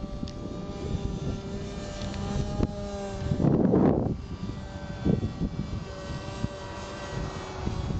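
RC model airplane's motor and propeller whining steadily in flight, with wind buffeting the microphone and one loud gust a few seconds in.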